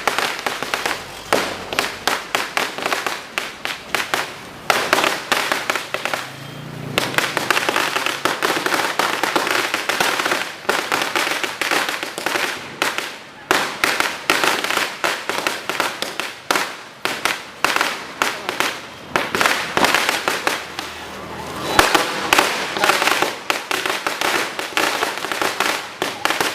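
A sinturon ni Judas, a long belt-like string of firecrackers, going off in a rapid, continuous run of sharp bangs, with a couple of short lulls.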